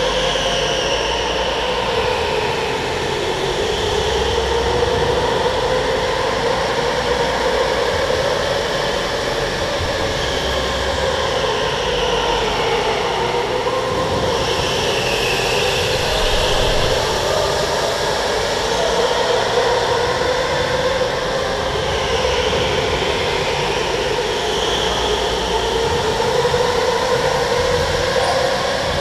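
Electric go-kart's motor whining as it drives, the pitch drifting up and down with speed, over a low rumble of tyres on concrete.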